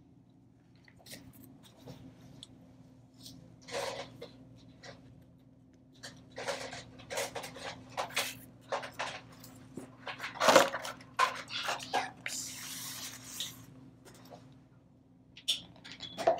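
Plastic toys being handled and set down: irregular clicks, taps and clatter, with a sharper knock about ten seconds in and a stretch of rustling around twelve seconds in.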